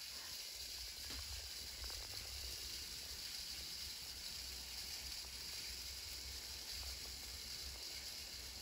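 Battery-powered light-up spinner toy running after its button is pressed: a faint, steady, even whirr from its small motor.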